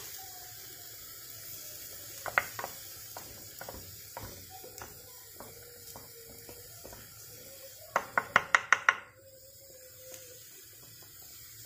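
Wooden spoon knocking and scraping against an earthenware tagine as meat and onions are turned, with scattered knocks and a quick run of about six sharp knocks some eight seconds in.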